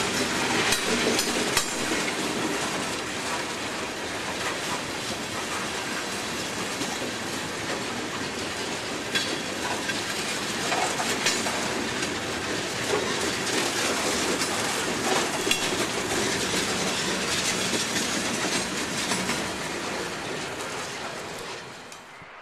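Freight train of tank cars and a covered hopper rolling past close by, its wheels clicking and clacking over the rail joints. The sound drops away near the end.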